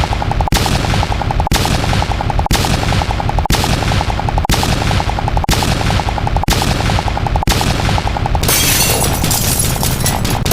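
A short popping sound effect repeated so fast that it runs together like machine-gun fire, in blocks of about a second. About eight seconds in it thickens into a dense, hissing wash of many overlapping copies.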